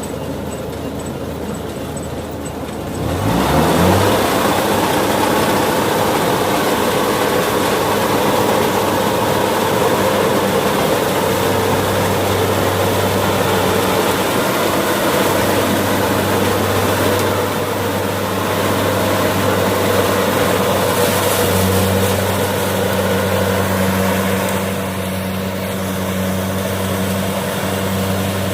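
Heavy diesel engine revving up about three seconds in, then running steadily at a loud, even pitch.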